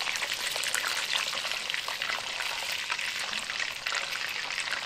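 Chicken fat and skin frying in hot lard in a clay pot: a steady sizzle full of small pops and crackles as the fat renders out.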